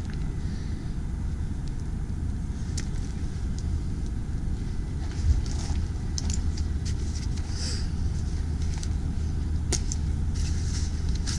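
Wind buffeting the microphone as a steady low rumble, with a few sharp clicks and rustles from the harness and gear being handled.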